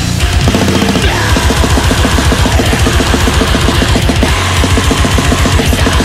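Death metal recording: heavily distorted electric guitars over drums played with rapid, evenly repeated strokes.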